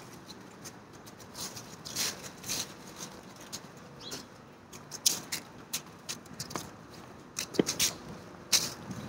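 Walking on a leaf-strewn sidewalk: irregular soft scuffs and crackles of footsteps and clothing rustle, one or two a second.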